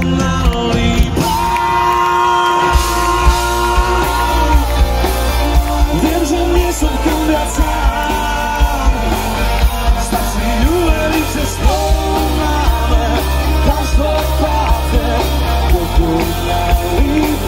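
Live rock band playing: drums, bass guitar, electric guitars and keyboards on a steady beat, with a male lead singer singing and yelling over them. A long held note starts about a second in.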